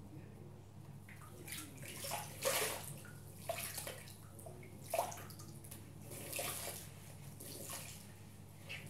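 Wet bath sponges being squeezed and handled over a sink of water, giving irregular wet squelches, splashes and drips, with soap lather squishing in the sponge near the end.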